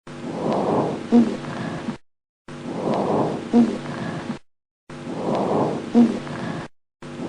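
A recorded breath sound played as a loop: the same breath of about two seconds repeats three times with short silent gaps, and a fourth begins near the end. Each breath has a noisy swell, then a short pitched squeak partway through.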